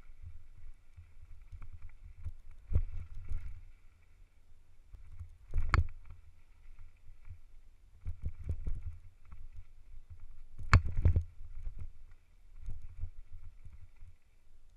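Mountain bike descending rough forest singletrack, heard from a rider-mounted camera: low wind rumble on the microphone with the bike rattling and clunking over roots and rocks, and sharp knocks about 3, 6 and 11 seconds in, the last the loudest.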